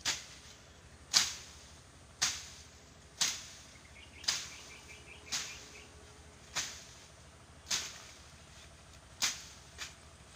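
Thick grass and weeds being slashed by hand with a swung blade, about ten sharp strokes roughly one a second, each a quick swish-and-cut that fades fast.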